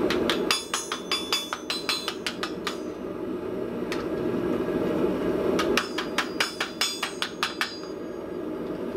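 Hand hammer striking red-hot, roughly 1 mm steel drum sheet held in a vise, bending it over: two quick runs of ringing blows, about five a second, with a single blow between them. A steady low rushing noise runs underneath.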